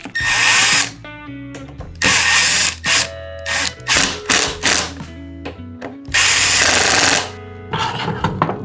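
A workshop tool running in four or five short bursts of under a second each, over background music.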